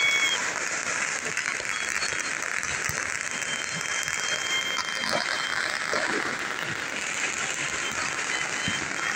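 Busy street ambience at night: a steady hubbub of distant crowd noise and traffic, with a brief thin whistle-like tone about three seconds in.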